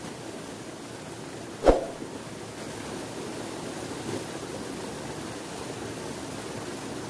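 Steady rushing background noise with a single sharp knock about a second and a half in.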